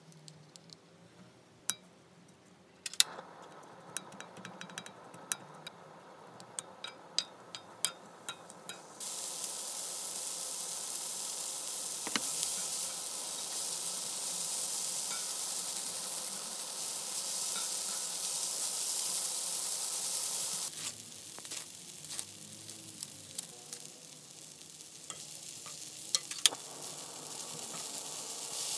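Pork belly, kimchi and onion sizzling as they fry on a griddle pan, with wooden chopsticks and a wooden spatula clicking and scraping against the pan as the food is stirred. The sizzling turns loud about a third of the way in, drops off suddenly about two-thirds in, then builds again near the end.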